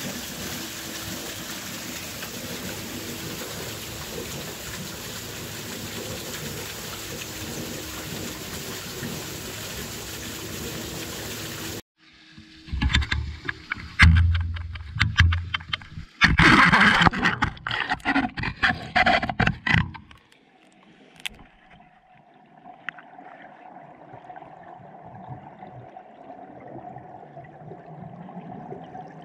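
Water rushing through a canal lock, a steady hiss. After a sudden cut, the action camera knocks and splashes loudly for several seconds as it is lowered into the lock, then the current rushes, muffled, underwater.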